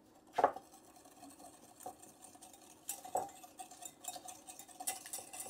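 Wire whisk beating a thin sauce in a small bowl: quick, irregular clicking and scraping of the wires against the bowl, with a few louder taps.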